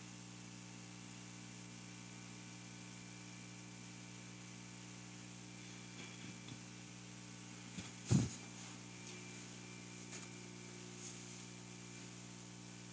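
Steady electrical hum on a live microphone line. A single thump comes about eight seconds in, with a few faint clicks around it.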